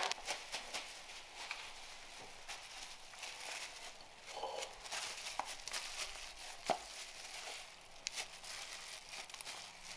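Plastic food wrap and disposable plastic gloves crinkling and rustling as they are handled, with scattered small clicks and one sharper tap about two-thirds of the way through.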